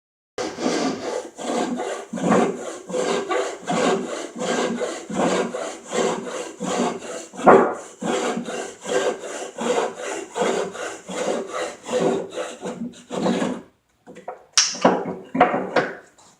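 Hand saw cutting wood in quick, even back-and-forth strokes, about two or three a second. The run of strokes stops about thirteen seconds in, and a few separate strokes follow near the end.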